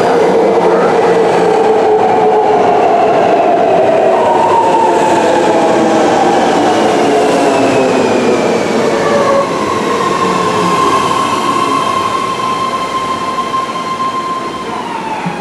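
BART C2 rapid-transit train pulling into a station and braking. Its whine falls steadily in pitch as it slows. In the second half a steady high tone holds, then drops away near the end as the train comes to a stop.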